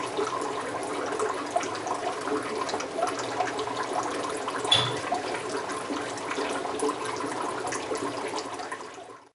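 Aquarium water trickling and splashing, with a low steady hum underneath and one sharp click about five seconds in. The sound fades out at the very end.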